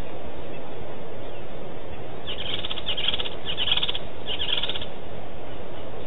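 A bird calling: four short, high, trilled notes in quick succession, over a steady background hiss.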